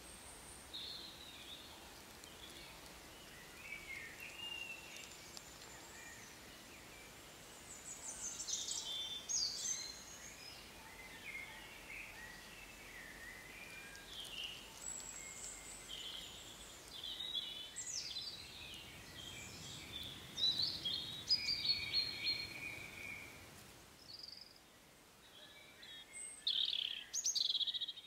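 Several songbirds singing together in a spring woodland chorus: overlapping short phrases, chirps and trills over a faint steady background hiss, busiest about a third of the way in and again later, with the loudest calls near the end.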